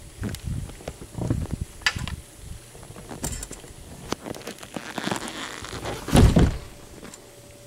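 Camcorder handling noise: irregular knocks, rubs and clicks as the camera is carried and swung about, with one heavy thump about six seconds in.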